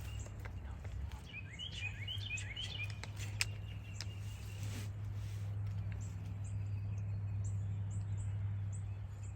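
Small birds chirping in a quick run of short notes over a steady low background rumble, with faint high chirps later on. A single sharp click comes about three seconds in.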